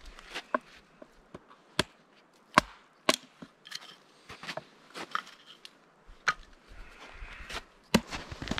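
Dry dead wood being snapped by hand: a string of sharp cracks at uneven intervals, the loudest about two and a half seconds in.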